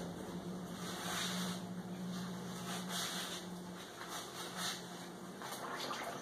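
Soft swishing and splashing of water as a silk scarf is pushed down and worked into a plastic tub of alum solution, coming in several gentle swells over a steady low hum.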